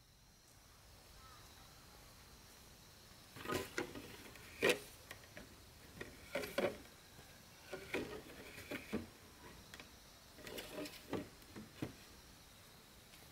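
Bamboo gate rails knocking and clattering against the posts as they are slid out by hand, in several short clusters of sharp knocks, with light footsteps on dirt.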